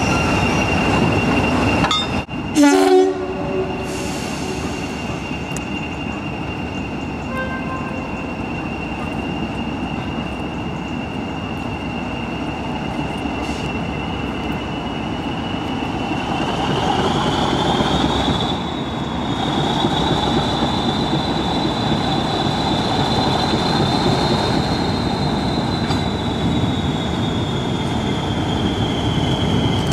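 Diesel-hauled heritage train running with a steady rumble and a high, continuous wheel squeal that rises in pitch a little past halfway and then slowly falls. A short, loud horn blast comes about two and a half seconds in.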